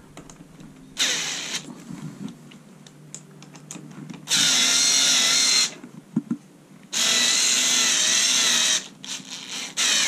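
Cordless electric screwdriver running in short spurts, driving the clamp screws of a rear-mount bicycle kickstand tight: a brief run about a second in, then two longer steady runs of about a second and a half and two seconds. Small clicks and handling noises fall in between.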